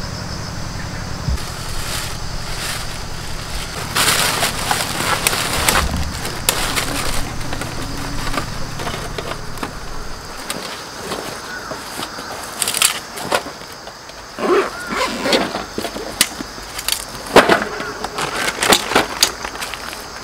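Metal clattering and scraping as a stainless-steel tray is handled and set down on gravel, with gravel crunching underfoot. A low steady hum runs under the first half and then stops.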